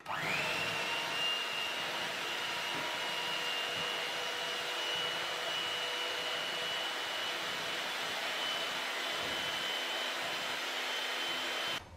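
Electric hand mixer running, its twin beaters whisking raw egg whites in a glass bowl: a steady whirr with a thin high whine. It spins up at the start and switches off just before the end.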